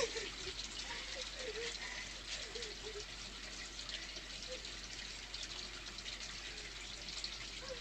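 Steady hiss with a few faint, brief sobs from a distressed woman.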